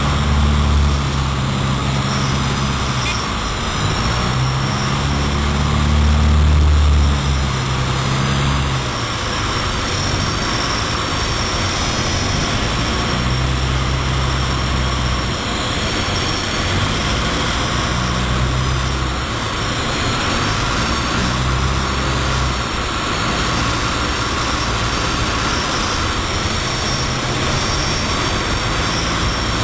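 Grob G115 single-engine propeller aircraft heard from inside its cockpit on final approach: a steady engine and propeller drone over rushing wind. The low engine note rises and falls several times and is loudest about six to seven seconds in.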